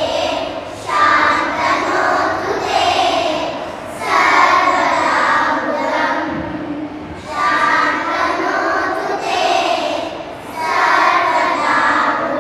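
A chorus of children singing together in phrases of a few seconds, each followed by a short break.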